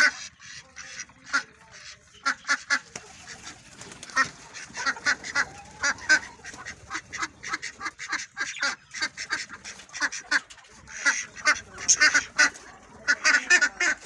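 Ducks quacking in quick, repeated calls as they scatter from a person in their pen; the calls come in louder, denser flurries near the end.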